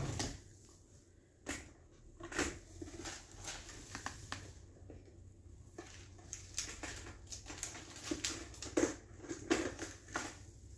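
Scattered light clicks and taps of small objects being handled on a tabletop, irregular and a few a second at most, over a low steady hum.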